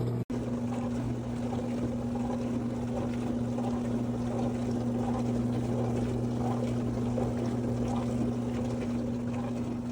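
COMFEE' portable countertop dishwasher running a wash cycle: a steady motor hum under the rush of water spraying inside the tub.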